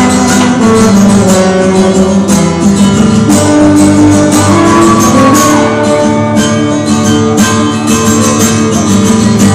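Acoustic guitar strummed steadily, with long held notes sounding over the chords.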